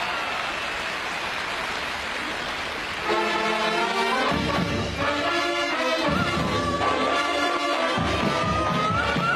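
Mariachi brass band of trumpets and saxophones, with trombone, playing a march. The band comes in suddenly about three seconds in after steady background noise, plays full held chords, and from about six seconds in a trumpet holds one long high note.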